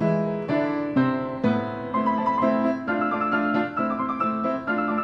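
Piano music: a continuous run of struck notes and chords.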